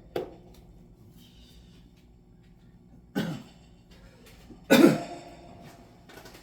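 A person coughing twice, about three seconds in and again more loudly near the five-second mark, over a faint steady hum, with a sharp click just after the start.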